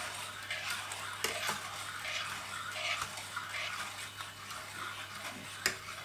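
A metal spoon stirring liquid in a stainless steel pot, swishing and scraping against the pot in repeated strokes, with a sharp clink near the end.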